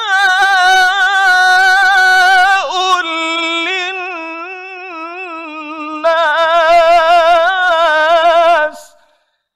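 A man's voice reciting the Quran in the melodic tilawah style, drawing out one phrase in long ornamented notes with a wavering pitch. It softens in the middle, swells again about six seconds in, and breaks off abruptly near the end.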